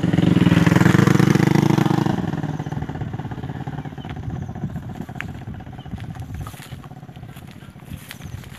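Engine of a passing vehicle, loudest about a second in, then fading away over the next few seconds.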